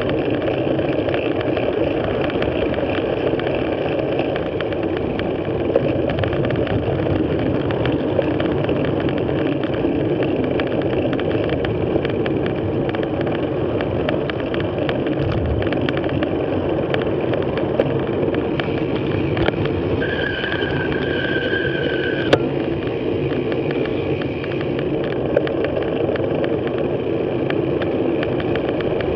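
Steady rumble of wind and tyre noise from a moving bicycle, picked up by a bike-mounted action camera, with scattered short knocks from bumps in the road. About twenty seconds in a steady high tone sounds for about two seconds.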